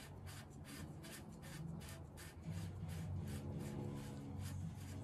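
SRAM DUB bottom bracket cup being screwed by hand into the bike frame's greased threaded bottom bracket shell: an even run of soft rasping strokes, about five a second. A steady low hum comes in about halfway.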